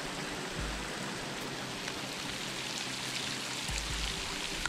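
Steady heavy rain falling on open lagoon water, an even hiss.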